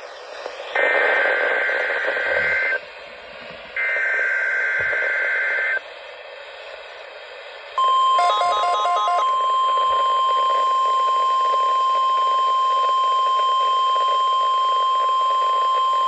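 Midland weather alert radio's speaker playing the NOAA Weather Radio Required Weekly Test: two harsh two-second bursts of SAME digital header data about a second apart. These are followed after a short pause by the long steady warning alarm tone, with a brief pulsing beep over its first second.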